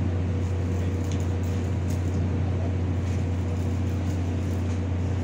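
Tugboat's diesel engine running steadily alongside, a deep constant drone.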